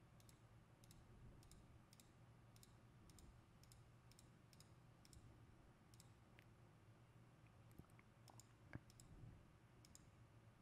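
Near silence, with faint computer-mouse clicking at about two clicks a second and a few slightly louder clicks around six to nine seconds in, over a faint steady low hum.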